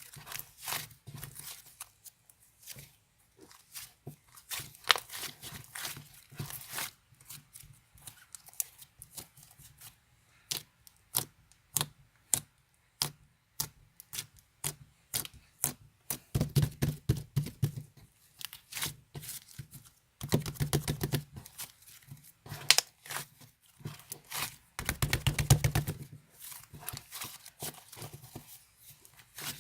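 Close handling noises: a rapid, irregular run of sharp clicks and tearing-like scrapes, with three longer, heavier rubbing passages in the second half.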